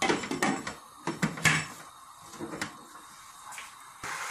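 Glass pan lid being set onto a frying pan of chopped peppers: a few sharp clinks and knocks in the first second and a half, and one fainter one later. Near the end a steady sizzle of the peppers frying starts.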